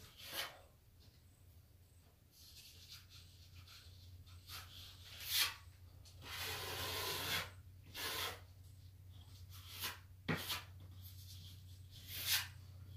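A plasterer's scraper being pushed along wet paper joint tape in the wall–ceiling corner, bedding it into the plaster and squeezing out the bubbles, in a series of separate scraping strokes with one longer stroke about six seconds in. A steady low hum runs underneath.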